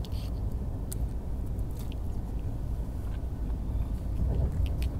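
Steady low rumble of a moving passenger train heard inside the coach, with scattered light clicks and chewing sounds close to the microphone as someone eats.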